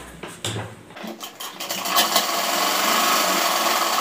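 Sewing machine running steadily, stitching the seam that attaches a pajama side pocket. It starts about a second in, after a little rustling of the cloth being set under the presser foot.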